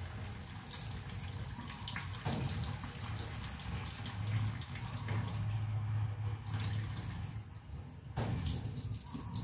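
Kitchen tap running a thin stream into a stainless steel sink while dishes are rinsed, with light clinks of dishware and a louder clatter near the end. A steady low hum sits underneath.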